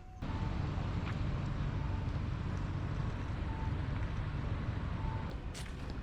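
Steady low rumble of street traffic, with a faint short beep repeating about every one and a half seconds.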